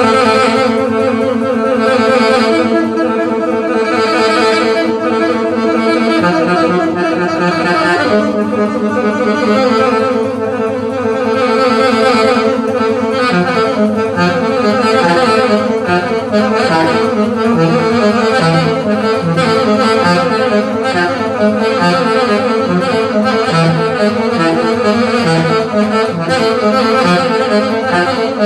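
Instrumental music with several notes held together as chords that shift every few seconds; about 13 seconds in it turns into a repeating pulsed figure of short notes.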